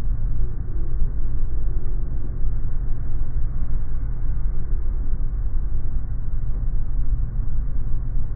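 Airliner cabin noise on final approach with the main landing gear lowered: a steady low rumble of engines and rushing air, heard from inside the cabin.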